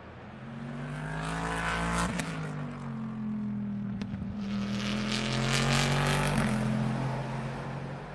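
GT Le Mans race cars at speed during qualifying: one goes by about two seconds in, its engine note dropping in pitch as it passes, and a second, slightly louder, goes by a few seconds later.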